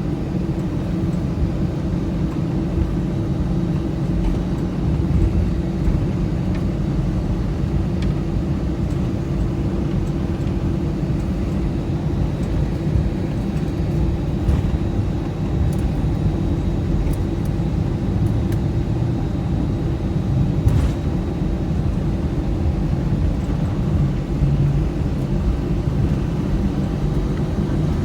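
Steady low rumble and hum inside the cabin of an Airbus A319 with IAE V2500 engines running. A few faint clicks come in over it.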